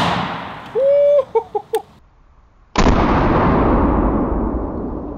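AR-15 rifle firing 5.56 XM193 rounds: the echo of one shot dies away at the start, and a second sharp shot about three seconds in rings out and fades slowly.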